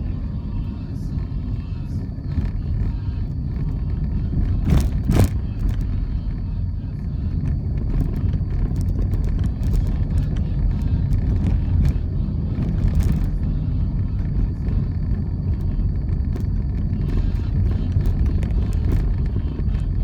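Steady low rumble of road traffic, with two short sharp knocks about five seconds in.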